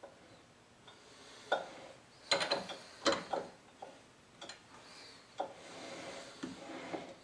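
Lathe four-jaw chuck turned by hand while a part is centered against a dial indicator. It gives scattered mechanical clicks and clinks, with a quick cluster of sharp, ringing metallic clicks about two to three and a half seconds in.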